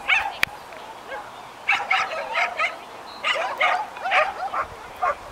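A dog barking in quick, high-pitched yips, in runs of several barks at a time, with one sharp click about half a second in.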